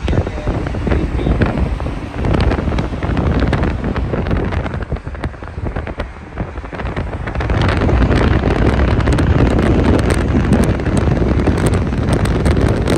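Wind buffeting the microphone of a phone filming from a moving car, over road and traffic noise; it gets louder about halfway through.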